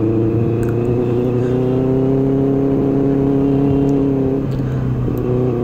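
Benelli 600i's inline-four engine running at steady revs while riding, its note dipping briefly about four and a half seconds in, then settling again.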